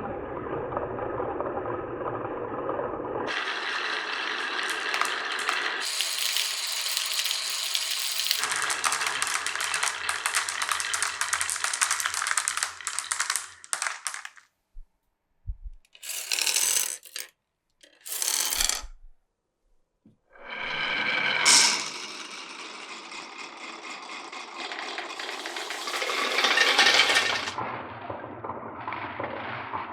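Glass marbles rolling and clattering along a wooden marble run, in stretches whose sound changes abruptly several times. About halfway through it drops almost to silence, with two short bursts of rolling, then the rolling resumes.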